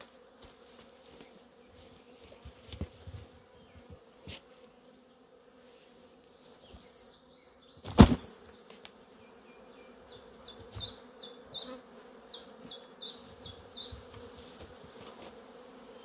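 Honey bees buzzing steadily around a disturbed hive, with a few light knocks and one loud sharp knock about halfway through as the strapped wooden hive is handled to shake the bees off.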